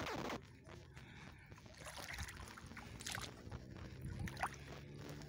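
Seawater sloshing and splashing around people wading, with a few sharper splashes. A loud falling, wavering tone cuts off about half a second in.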